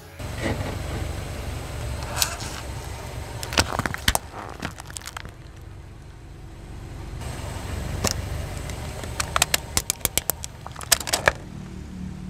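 A car's tyre rolling slowly over things on asphalt, the engine a steady low rumble, with sharp cracks and snaps as hard plastic items break under the wheel: a few scattered in the first half, then a quick run of them later.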